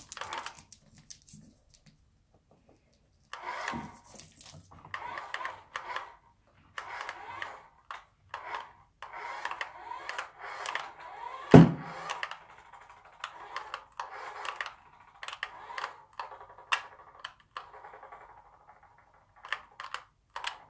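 Remote-control toy car driven in short stop-start bursts, its small electric motor whirring with clicks and clatter. One loud thump comes about halfway through.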